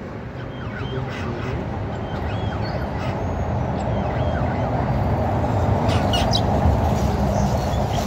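European starlings giving short chirps, whistles and clicks, with a quick run of sharp clicks about six seconds in. Under them runs a steady low rumble that grows louder.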